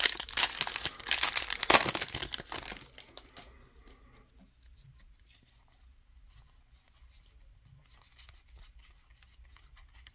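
Shiny plastic wrapper of a Donruss football card pack torn open and crinkled, loud for about the first three seconds. Then faint rustling and flicking of the cards being leafed through by hand.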